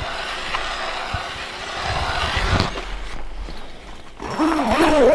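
Footsteps and handling noise crunching across snow-covered lake ice, with wind on the microphone. About four seconds in, a brief wavering pitched sound rises and falls.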